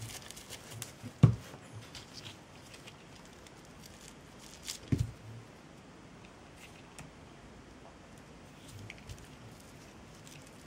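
Quiet hand-crafting noises as jute twine is coiled and glued onto a cling-film form: faint rustles and small clicks, with two dull thumps, about a second in and about five seconds in.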